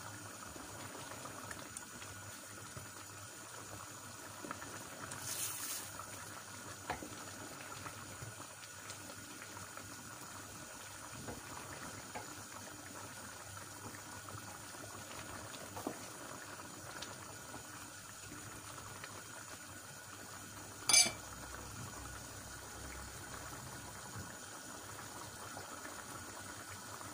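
Chickpea and beef stew in tomato sauce simmering in a stainless steel pan on a gas stove, a steady bubbling, stirred with a wooden spoon that knocks lightly against the pan now and then. One sharp clink about three-quarters of the way through is the loudest sound.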